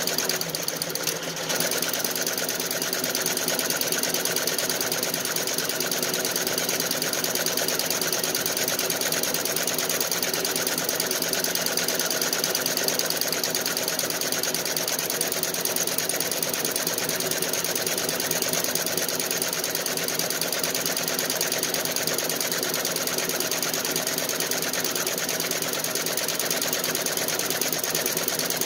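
Feiyue nine-needle commercial embroidery machine running steadily, its needle bar stitching in a fast, even rhythm, with a brief dip about a second in.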